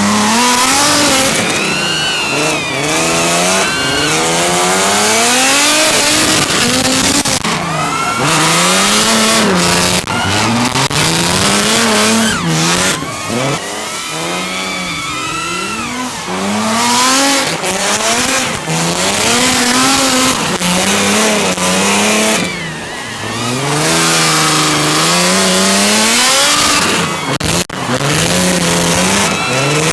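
Drift car engines revving up and down over and over, each rev rising and falling within a second or two, over steady tyre squeal. There is a brief break near the end.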